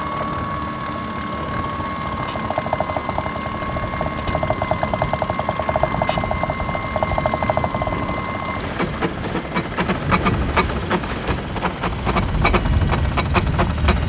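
Electric sailboat winch hoisting the mainsail: a steady motor whine with fast, even clicking from the winch drum, stopping about eight and a half seconds in. Irregular clicks and knocks from the winch and rigging follow.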